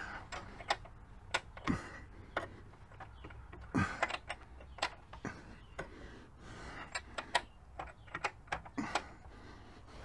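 Ratchet socket wrench clicking in short, irregular runs on the 36 mm rear axle nut, with a few sharper knocks of metal on metal as the nut is worked loose.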